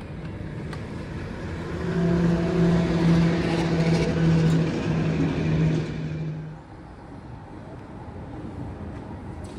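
Vintage electric tram with a trailer passing close by: a steady hum from its drive over the rumble of wheels on the rails. The sound swells about two seconds in and drops away at about six and a half seconds, leaving quieter outdoor background.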